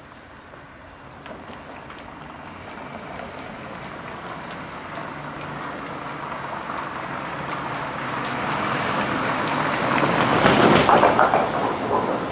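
A vehicle approaching and passing close by. Its noise grows steadily louder over about ten seconds to a peak near the end, with a fast run of regular clicks as it comes closest.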